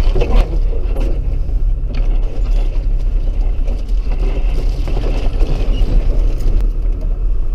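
4WD driving slowly over a rough, overgrown bush track, heard from inside the cab: a steady low engine and tyre rumble, with scrub brushing against the body and occasional knocks and rattles.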